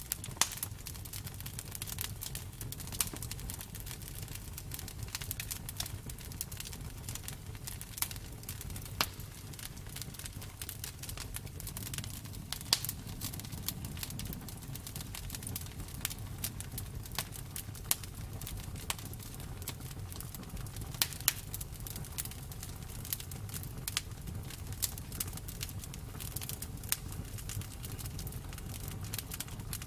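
Campfire burning: a steady low rumble of flames with irregular sharp crackles and pops of burning wood.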